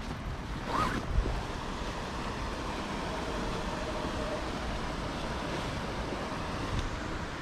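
Wind buffeting the microphone: a steady rushing rumble, with a brief knock about a second in.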